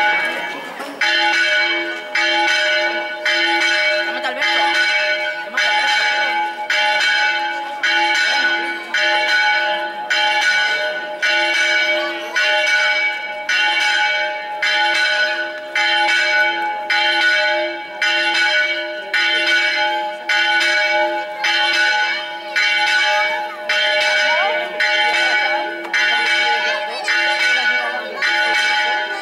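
Church bell ringing a steady peal, struck again and again at an even pace of about one and a half strokes a second, its tone ringing on between strikes; the ringing starts about a second in.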